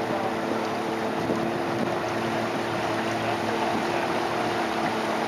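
Boat motor running at a steady pitch, with wind buffeting the microphone.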